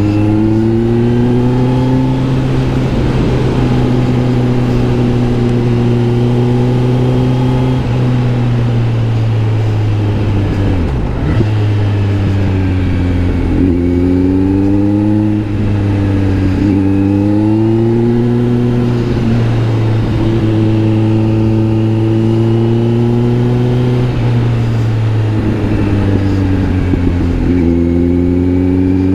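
Kawasaki Z900 SE inline-four with an SC Project S1 exhaust under way. The engine note climbs and then drops back several times as the bike accelerates and shifts gears, over a steady low drone.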